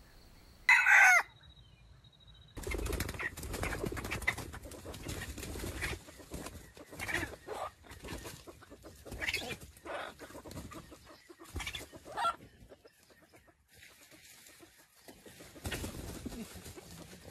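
Red junglefowl calling: one short, loud call falling in pitch about a second in, then scattered clucks and brief calls over a rustling noise.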